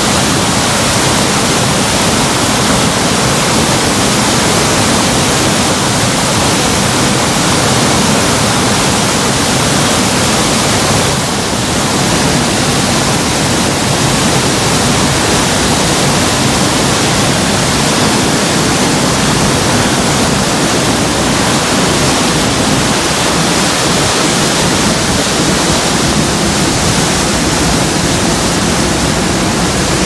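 Water pouring over a low dam spillway and crashing onto rocks: a loud, steady rush of white water, with a brief dip about eleven seconds in.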